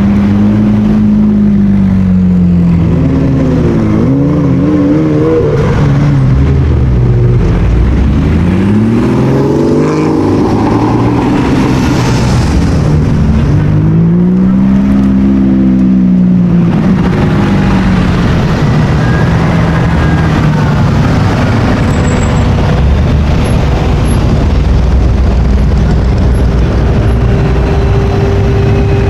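Performance car engines revving loudly, the pitch climbing and dropping several times in quick blips, then settling to steadier running.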